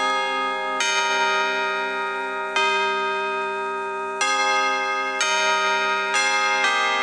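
Church bells ringing, six strokes at uneven intervals, each one ringing on under the next.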